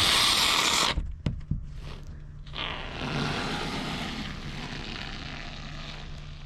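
Can of expanding spray foam insulation hissing as foam is pushed out of the nozzle. A short loud burst of hiss is followed by a couple of clicks, then a longer hiss from about two and a half seconds in that slowly fades.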